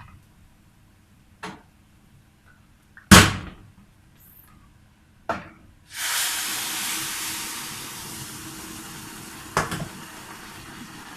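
A few knocks of utensils on the pot, the loudest about three seconds in. About six seconds in, hot broth hits the rice and vermicelli frying in the pot and sets off a loud sizzle that slowly dies down, with another knock near the end.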